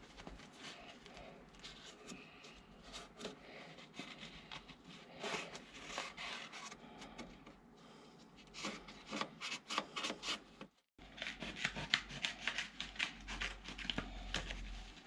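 Cardboard rubbing and scraping against sheet metal as a template is pressed into a van's rear corner and traced with a marker: runs of short, scratchy strokes. Near the end comes more rustling and scraping as the cardboard template is handled against a sheet, over a low hum.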